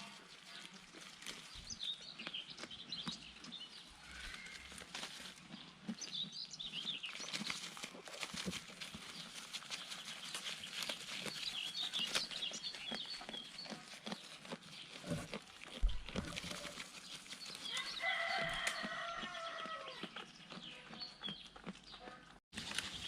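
Farmyard fowl calling, with short high chirps and clucks over scattered rustling clicks, and one longer pitched call about three quarters of the way through.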